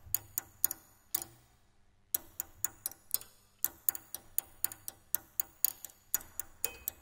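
A thin stick tapping on the strings inside an open grand piano, giving a regular run of sharp, dry clicks about four a second, with a pause of about a second near the start.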